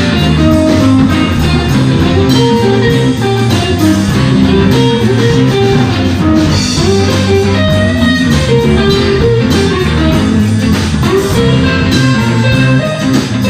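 Live electric blues band playing: a lead electric guitar picks out single-note lines over bass guitar and a drum kit.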